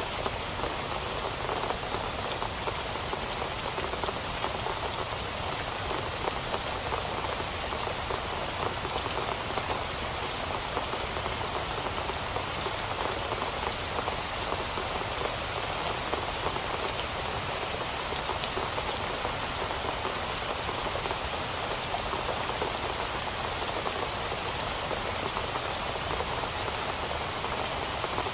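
Steady rain falling on a surface, a dense even patter of drops that does not change.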